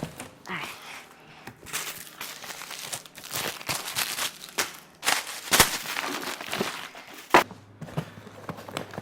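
Packaging being handled and torn open by hand: irregular crinkling and tearing with scattered sharp knocks.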